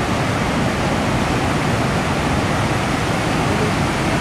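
Floodwater pouring through the open gates of a dam spillway and churning below: a loud, steady rush of water.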